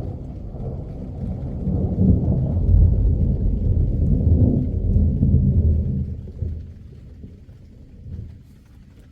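A long roll of thunder, rumbling deep and low. It swells about two seconds in and dies away after about six seconds.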